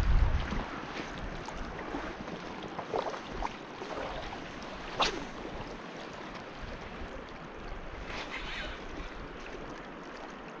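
Inflatable PVC boat under way on a mountain river: steady rushing of water and wind on the microphone, with one sharp knock about five seconds in.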